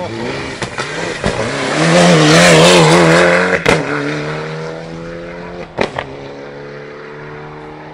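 Rally car passing at speed, its engine loudest as it goes by about two to three and a half seconds in, the pitch wavering under throttle. There is a sharp crack just before four seconds in and another near six seconds, then the engine pulls away, its note rising slowly as it fades.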